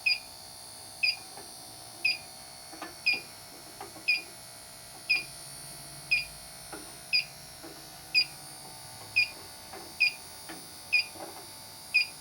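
Electronic refrigerant leak detector beeping steadily about once a second, the even rate it gives when it is not sensing refrigerant. Faint clicks from the probe being moved around the coil come in between.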